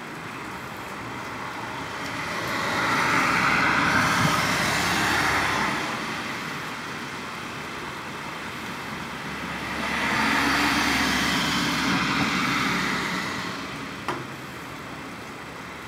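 Two road vehicles passing one after the other, each a swell of tyre and engine noise rising and fading over about four seconds. A short click near the end.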